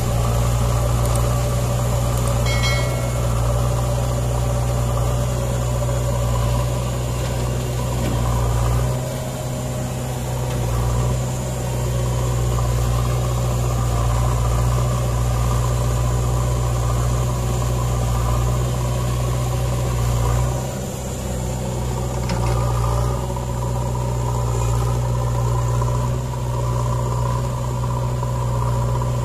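Diesel engines of an Eicher tractor idling and a JCB backhoe loader running as it digs and loads soil. The steady low engine drone dips briefly about nine and again about twenty-one seconds in.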